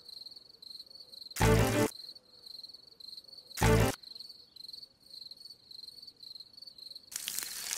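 Crickets chirping steadily in a pulsing rhythm, broken twice by short loud musical hits. Near the end a hiss starts to rise.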